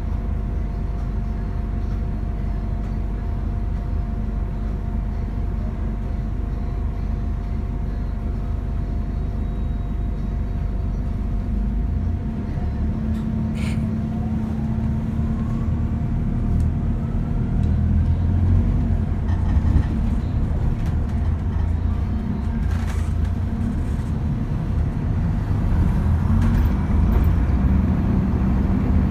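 Bus diesel engine running with a turbocharger whine; the engine sound grows heavier about twelve seconds in and the whine rises in pitch over the following few seconds.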